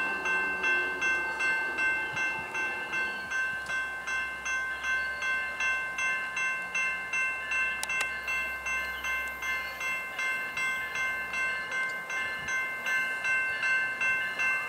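Railway level-crossing warning bell ringing in a fast, even, repeating pattern, signalling an approaching train.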